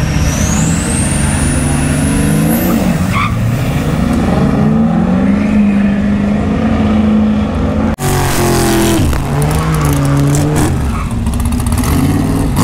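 Diesel drag truck's engine running hard at the strip, its pitch climbing, with a high whistle rising steeply in pitch over the first few seconds. About eight seconds in the sound cuts abruptly to another stretch of engine running, its pitch falling and then holding steady.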